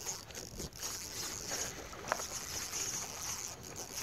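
Faint, steady outdoor background hiss with one short click about two seconds in.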